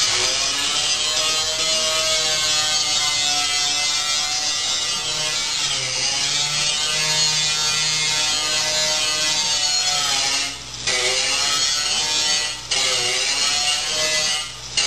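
Electric angle grinder cutting into the sheet-steel auger housing of a John Deere 1032 snowblower, the motor's whine sagging in pitch as the wheel bites and recovering as pressure eases. Near the end the grinding stops briefly a few times as the wheel is lifted off.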